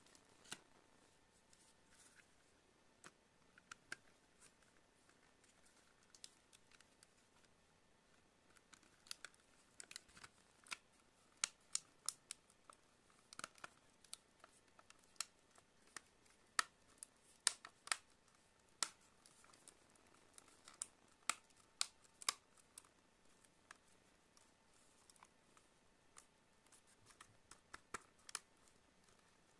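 Scattered sharp clicks and snips of hands handling a tablet while taping it up. The clicks come irregularly and are thickest in the middle.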